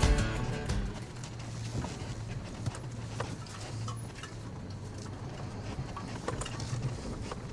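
Off-road vehicle's engine running low and steady while scattered clicks and knocks sound, like tyres creeping over loose stones; background guitar music fades out in the first second.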